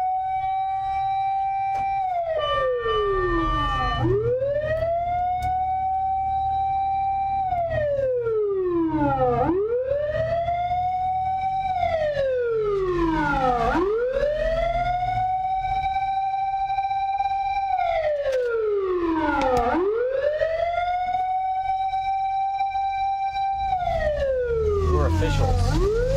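Siren of a 1989 Toyota Land Cruiser fire truck sounding a slow wail, about five times over. Each cycle climbs to a high tone, holds it for a few seconds, then glides steadily down before climbing again. Underneath runs the low rumble of the truck's engine, with road noise rising near the end as it drives off.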